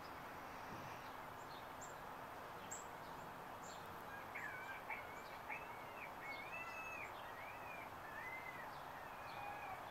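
Steady outdoor background hiss with scattered short high chirps; from about four seconds in, a songbird sings a run of looping, warbling whistled notes.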